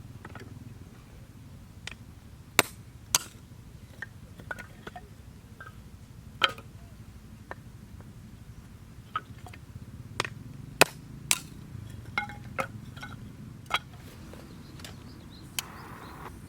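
A series of about a dozen sharp clicks and light clinks at irregular intervals, some ringing briefly, over a steady low rumble.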